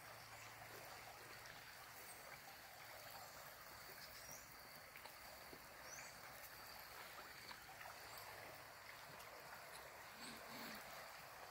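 Very faint, steady rush of a shallow river running over rocks and a low stone weir; near silence overall.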